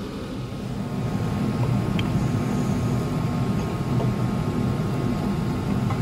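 Steady low mechanical hum with a faint click about two seconds in.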